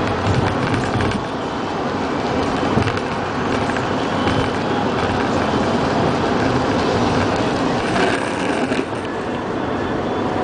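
Steady road and engine noise of a car travelling at highway speed, heard from inside the cabin.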